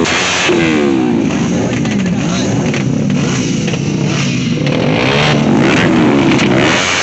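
Sport motorcycle engine being revved again and again, its pitch sweeping up and down in quick, overlapping runs.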